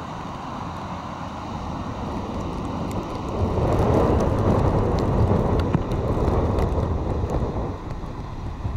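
Wind and breaking surf on a stormy beach: a steady rushing noise that swells for a few seconds about a third of the way in, then eases.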